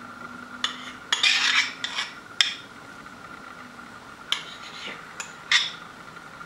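A metal spoon scraping and clinking against a bowl as sour cream is spooned into the dough mixture: several short scrapes and sharp clinks with pauses between them.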